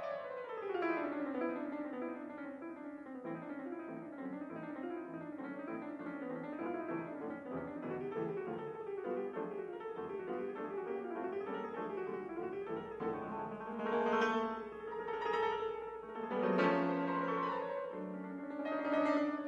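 Background piano music: a rapid run of notes, changing about two-thirds of the way through to slower, separately struck chords.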